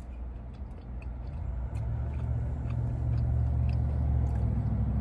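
A motor vehicle's engine running close by: a low, steady rumble that swells about a second and a half in and then holds. Faint chewing clicks sound over it.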